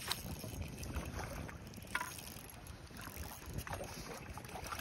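Small splashes and drips of water as a landing net is worked in the shallows, over a steady rumble of wind on the microphone.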